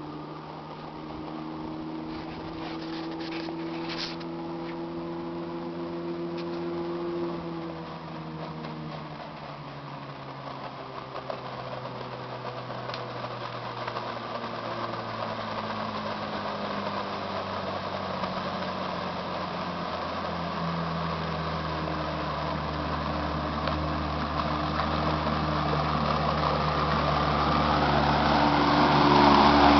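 A 20 hp Mercury outboard motor pushing a small boat across the water, a steady hum that grows louder as the boat draws near. Its pitch dips for a few seconds and later rises again. Near the end, water rushing off the hull joins in as the boat passes close.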